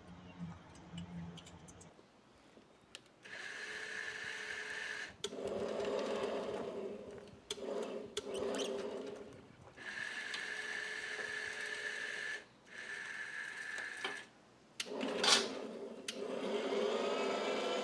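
A small electric motor running in short bursts of one to two seconds, starting and stopping about six times, with a steady whine; near the end its pitch swings up and down.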